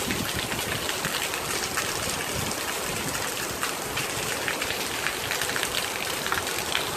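Steady rain falling, with many small drop hits and gusts of wind.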